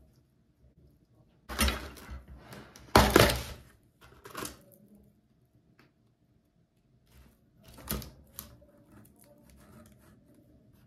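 Short bursts of rustling and clattering as a clear plastic container of frozen strawberries and a spoon are handled on a wooden table, loudest about three seconds in, with one more clatter near eight seconds.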